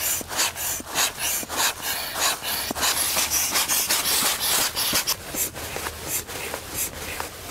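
Inflatable sleeping mat being pumped up with its own small pump: a rapid run of rustling, rubbing strokes of the nylon mat fabric, several a second.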